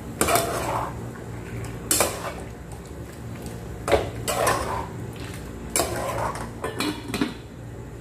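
A utensil knocking and scraping against a cooking pot, about six sharp clanks a second or two apart, as chicken is mixed into soy sauce and vinegar before simmering.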